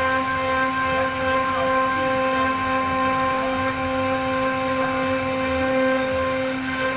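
CNC router's spindle running with a steady, pitched whine as it carves a wooden door panel.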